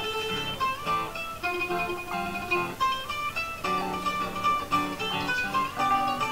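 Live duo playing a plucked-string tune on guitar and ukulele, a steady run of picked notes.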